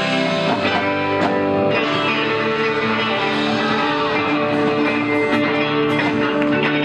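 Live rock band playing a jam led by electric guitars with sustained notes, over drums and keyboard.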